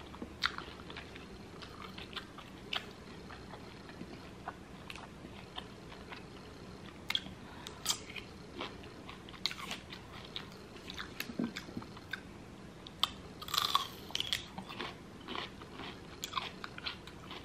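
Close-miked eating sounds of a person chewing lemon pepper chicken wings and biting a small yellow pepper: wet chewing with many small clicks and smacks. A louder cluster of bites comes about three-quarters of the way through.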